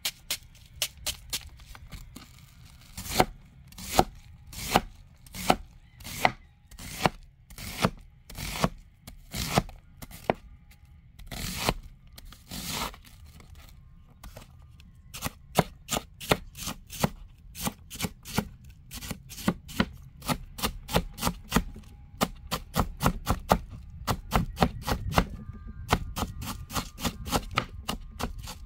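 Large curved-blade knife slicing and chopping an onion on a wooden cutting board: a run of sharp knife strikes on the board. The strikes come more slowly through the first half, then speed up to rapid chopping of about three a second.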